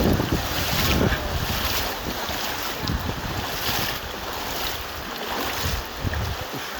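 Steady rush of flowing river water, with wind buffeting the microphone in uneven low rumbles, strongest about the first second.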